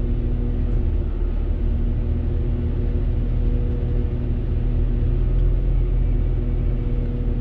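Northern Class 195 diesel multiple unit heard from inside the carriage: a steady low rumble with a constant hum from the underfloor diesel engine and running gear as the train moves alongside a platform.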